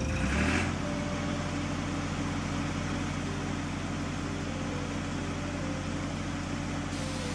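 Steady engine hum of a machine or vehicle sound effect, opening with a brief rushing swell, with faint stepping notes of a tune underneath.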